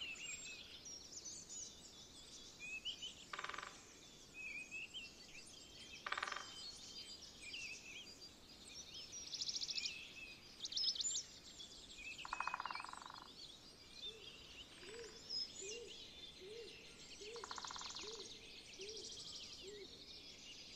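Several small birds singing and chirping over a light outdoor hiss, with high twittering phrases and a few buzzy trills. From about the middle on, a low note repeats steadily, roughly three times every two seconds.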